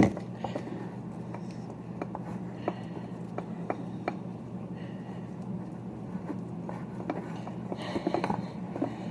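Popsicle sticks stirring a thick cornstarch-and-detergent slime mixture in bowls: scattered light clicks and scrapes against the bowl, over a steady low hum.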